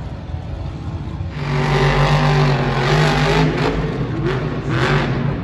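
Monster truck's engine revving hard: quieter for the first second, then rising to full throttle with several quick surges in pitch as the truck launches over the ramps.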